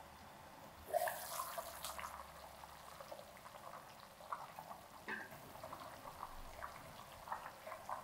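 A glass pot lid lifted with a sharp clink and rush about a second in, then turmeric chicken broth bubbling at a simmer, with many small irregular pops.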